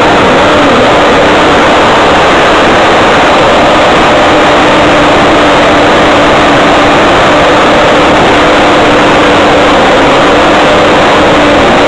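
Jet ski engine running hard at a steady pitch right by the microphone, over a dense rush of water and wind noise; very loud throughout.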